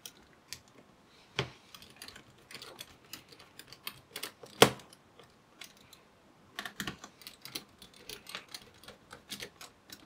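Precision screwdriver driving the small heatsink screws of a laptop: scattered light clicks and ticks of the bit on the screw heads and metal, with a sharper tap about a second and a half in and a louder one a little before the middle.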